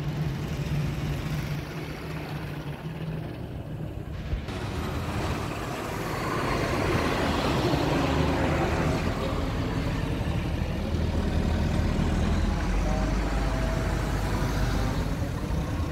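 Truck engine running steadily with a low hum, growing louder from about six seconds in.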